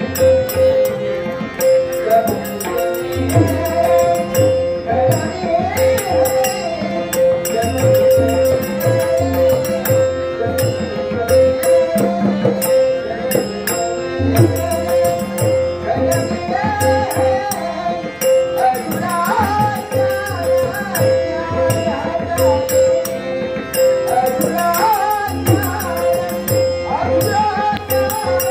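Live thumri accompaniment: a harmonium holding a steady note under a sung melody, tabla playing a rhythm, and small jhanj hand cymbals clashing in quick repeated strokes. A man's singing voice wavers over the top, most prominent in the last third.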